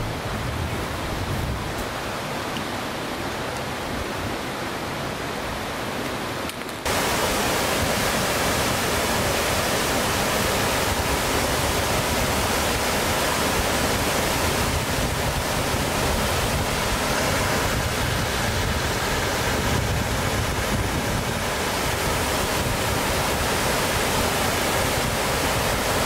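Haypress Creek waterfall, a steady rush of falling water. It sounds duller at first, then about seven seconds in it jumps suddenly to a louder, fuller, brighter rush.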